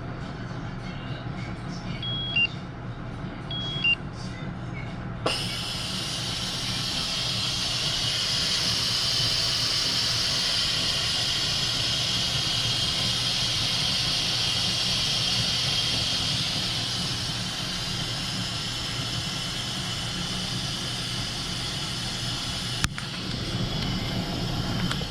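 Two short electronic beeps from a kitchen appliance, then a steady hiss of steam from a pressure cooker that swells and slowly eases off, over a low steady hum.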